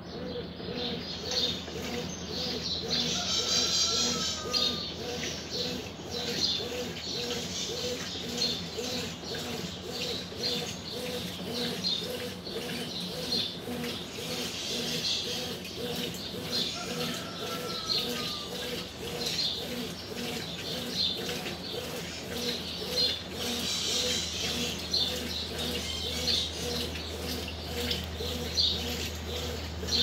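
Brastemp BWK12 top-loading washing machine agitating a load in water during its wash stage: the agitator turns back and forth, giving a rhythmic swishing and sloshing of water over a steady low hum.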